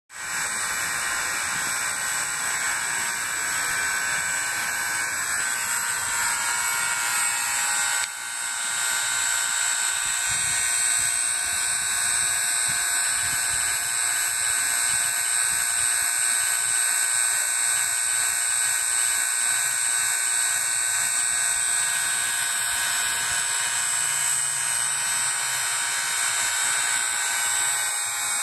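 Vacuum pump running steadily with an even, high buzz, pulling a vacuum on an air-conditioning refrigerant system through the manifold gauge hoses to clear it of air and moisture.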